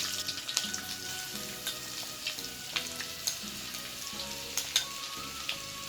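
Garlic sizzling as it fries in hot oil, stirred in the pan with several sharp clicks of the spatula against the metal.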